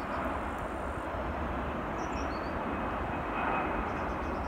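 Steady jet engine noise of a four-engined Boeing 747-446 airliner low on landing approach, an even, deep-weighted rumble that holds without a break.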